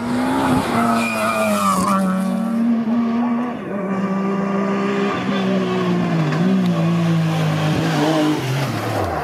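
Rally car engine running hard at high revs, holding a near-steady pitch with a few small dips, then its pitch falls away near the end.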